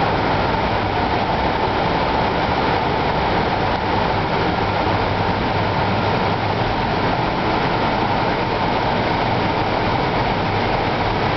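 Steady whir of a server room's cooling fans and air handling: an even rushing noise at a constant level with a low hum underneath.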